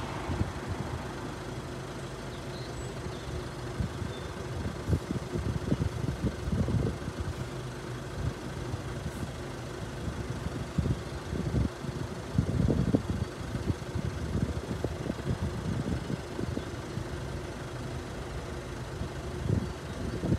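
Wind buffeting the microphone in irregular low gusts, over a faint steady hum.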